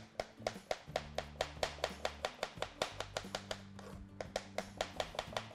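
Kitchen knife slicing fresh ginger on a plastic cutting board: quick, even strokes at about five a second, over soft background music.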